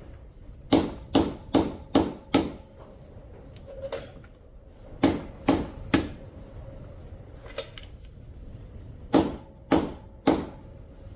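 Sledgehammer blows on the old seal laid over a new rear hub seal, driving it into the hub: eleven sharp metal strikes in three bursts of five, three and three.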